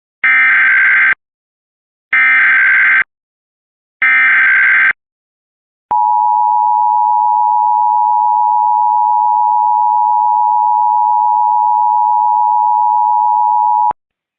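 Emergency Alert System header: three one-second bursts of screechy digital SAME data tones, two seconds apart, followed by the EAS attention signal, a steady two-note tone held for about eight seconds that cuts off sharply.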